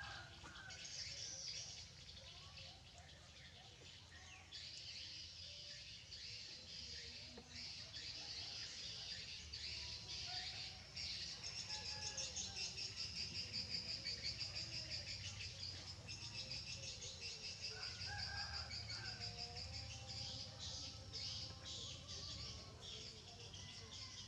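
Birds chirping over a steady, high-pitched insect chorus that pulses rapidly and grows louder for a few seconds around the middle.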